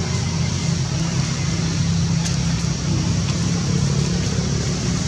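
Steady low engine-like hum under a constant hiss.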